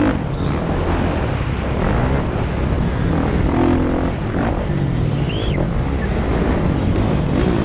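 Kawasaki KX450F's four-stroke single-cylinder engine running hard around a motocross track, its revs rising and falling again and again through the gears and corners.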